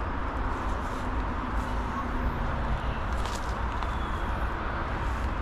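Steady outdoor background noise with a low rumble, broken by a few faint clicks.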